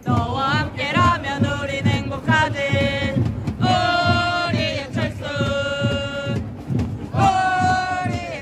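A man singing through the stadium loudspeakers over a backing track with a steady beat, holding long notes near the middle and again near the end, with the stadium crowd faintly underneath.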